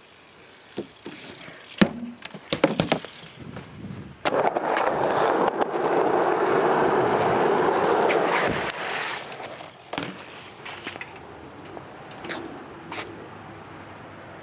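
BMX bike riding on asphalt and wooden ramps. Sharp knocks and clatters from the bike hitting the ground and ramps in the first few seconds, then several seconds of loud, steady tyre-rolling noise, and a few lighter knocks near the end.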